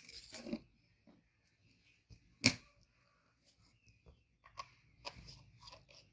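A single sharp click about two and a half seconds in, with faint rustling and a few soft clicks around it.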